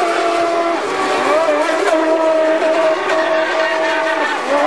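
Radio-controlled racing boats running at speed, their small high-revving engines giving a steady, high-pitched whine. The whine shifts slightly in pitch and dips briefly near the end.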